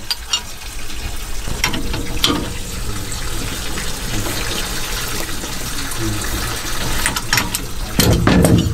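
Steady splashing of water draining from the steam locomotive's tanks, with sharp metal clinks from the box spanner and brass firebox washout plugs as they are taken out, and a louder clatter near the end as a plug and spanner are set down on the cab floor.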